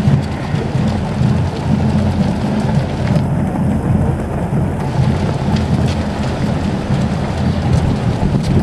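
Wind rumbling on the microphone over the continuous patter of many runners' footsteps on asphalt.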